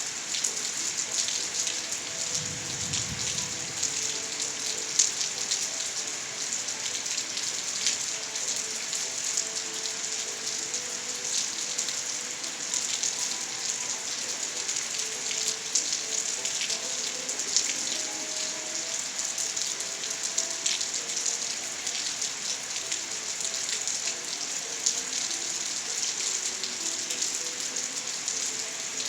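Steady rainfall, with many individual drops pattering on surfaces close by. A brief low rumble comes about two to three seconds in.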